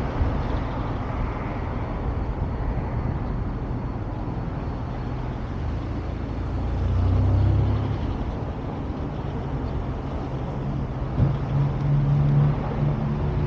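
Road vehicle driving: a steady low rumble of engine and tyres, swelling twice, about halfway through and again near the end, with a brief knock just before the second swell.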